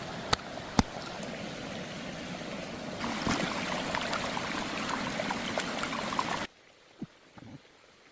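Running water, a steady rushing hiss with a few sharp clicks near the start, louder about three seconds in, then cut off abruptly about six and a half seconds in; a few faint taps follow.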